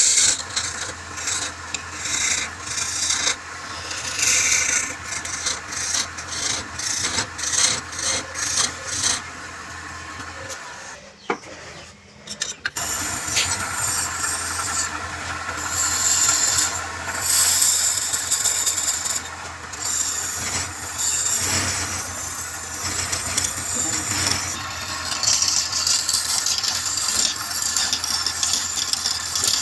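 Wood lathe running with a steady hum while a tool or sandpaper rubs and scrapes against the spinning wood in repeated strokes. The sound drops away for about two seconds around the middle, then resumes.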